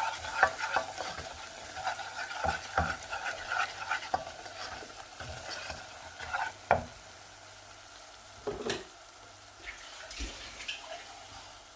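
A spoon stirring and scraping ground spices frying in oil in a pan, over a steady sizzle. The stirring strokes come thick for about seven seconds, then give way to a few separate knocks.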